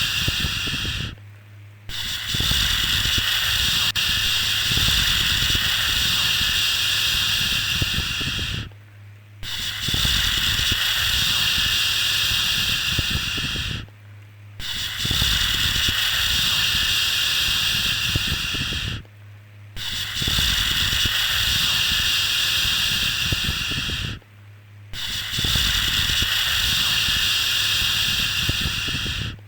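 Continuous 'shhh' shushing sound for soothing a baby, a steady hiss held for about five seconds at a time. It breaks off for under a second between stretches, five times.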